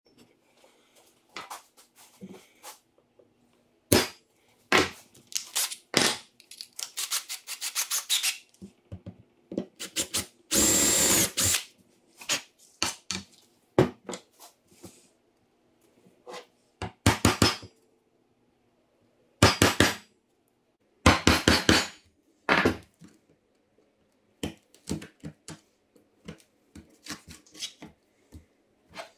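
Woodworking hand work on a bench: a chisel and other tools and wooden pieces knocked, scraped and set down, making irregular clicks, taps and short scrapes. About eleven seconds in comes one longer, louder scraping noise.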